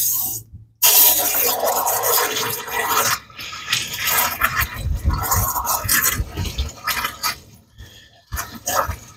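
Water from a garden hose nozzle forced into the thermostat-housing opening of a 1961 Metropolitan engine, rushing and gurgling through the block as the cooling system is flushed of rust and sediment. The flow cuts off briefly just before a second in and again about eight seconds in.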